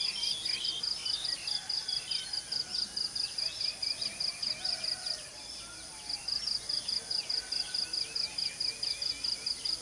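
An insect chirping in a steady, high-pitched pulse, about four or five chirps a second, that breaks off for about a second just after the midpoint. Birds chirp and call over it.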